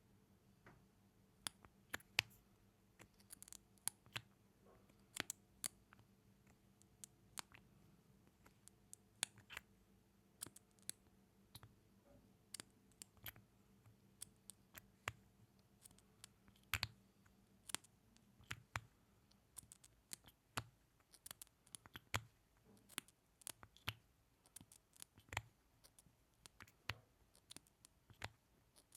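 Close-miked ASMR mouth sounds: irregular wet clicks and smacks of lips and tongue, several a second, some sharper and louder than the rest.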